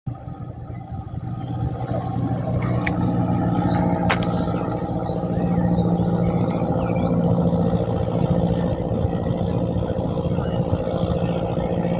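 Engine of the Missunde II ferry running steadily, a low hum that grows louder over the first couple of seconds. Two short clicks come about three and four seconds in.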